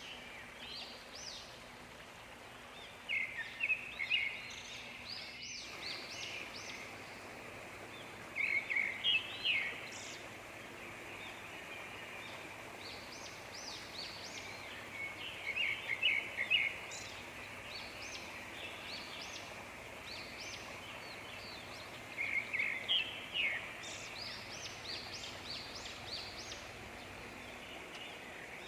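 A songbird singing short, chirping song phrases of about one to two seconds, repeated every six or seven seconds, over a steady background hiss.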